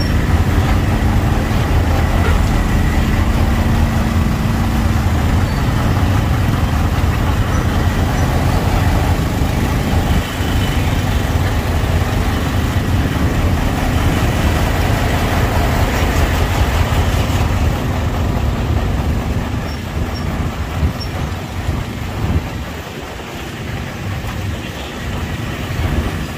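Engines of slow, jammed motorbike and truck traffic heard from a motorbike in the midst of it: a steady low rumble that eases a little near the end.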